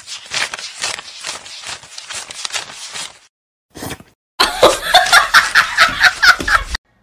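A person laughing: quieter, breathy snickers at first, then after a short pause loud laughter in quick bursts of about five a second that stops abruptly near the end.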